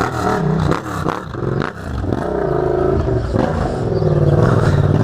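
Yamaha MT-07 parallel-twin fitted with an aftermarket Jeskap Evo Titanium exhaust, being revved: several quick throttle blips, then a longer rev held high and climbing over the last couple of seconds.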